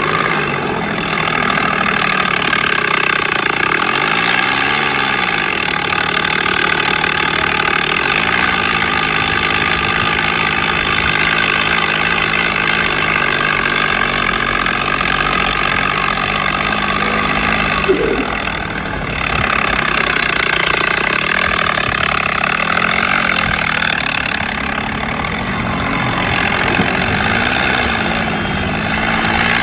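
Tractor engine running, its pitch rising and falling several times as the revs are brought up and let back down.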